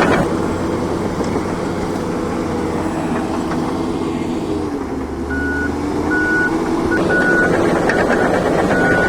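Heavy diesel machinery running, its engine note dipping and then rising again around the middle. About halfway through, a reversing alarm starts beeping, a little more than one beep a second.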